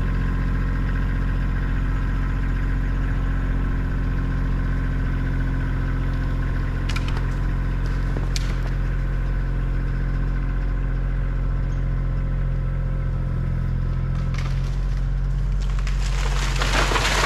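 Kioti CK2610 compact tractor's diesel engine running steadily as it takes up the strain on a rope tied to a dead tree. Near the end, wood cracks and splinters as the tree starts to give way.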